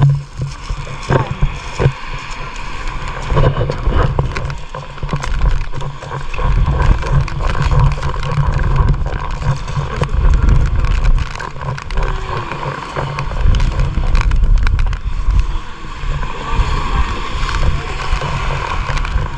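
Motorboat engine running steadily while the wind buffets the microphone in heavy, uneven gusts.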